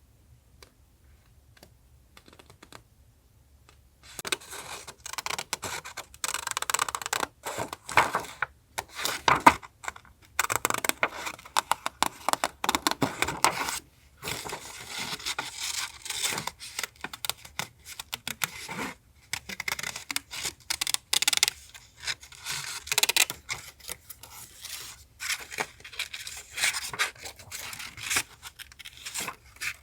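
Paper being handled for a journal collage: scratchy rustling and scraping of paper, with some tearing and small clicks, starting about four seconds in and going on busily after that.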